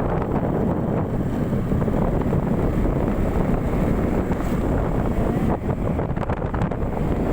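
Steady wind rumble buffeting the microphone of a moving vehicle, with road and engine noise underneath.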